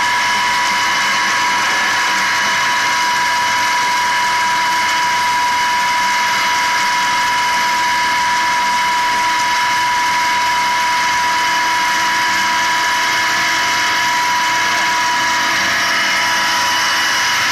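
An 18.5 kW Tesla-type disc sand pump (five discs, 20 mm gaps) running steadily under load with a high whine, while its discharge stream of sandy water gushes and splashes into a barrel.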